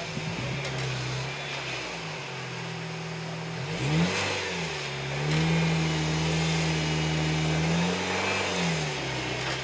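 Off-road 4x4's engine running at low revs, blipped quickly about four seconds in, then held at higher revs for about three seconds before dropping back.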